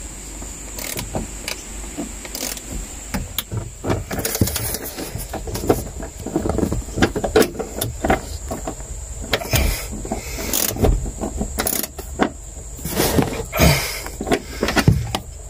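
Irregular metallic clicks, taps and scraping of a spanner on a small 10 mm nut and bolt being fitted by hand, with hands rubbing against hoses.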